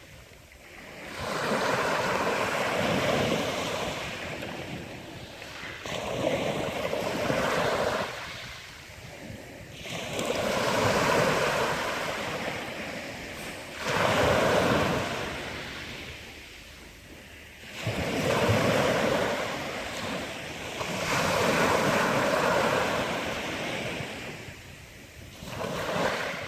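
Sea waves breaking and washing on the shore, swelling and ebbing about every three to four seconds, with some wind on the microphone.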